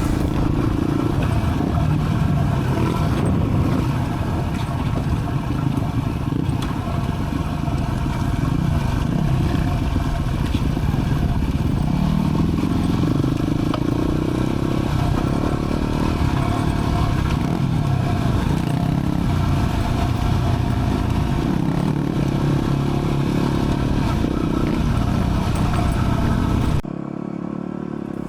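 Dual sport motorcycle engine running under way, its pitch rising and falling with the throttle. Near the end the sound cuts abruptly to a quieter one.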